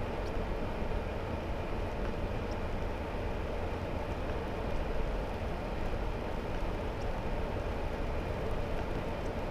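Hummer H3 driving at steady speed: a continuous low engine and road drone with the hiss of tyres on wet asphalt and wind noise, unchanging throughout.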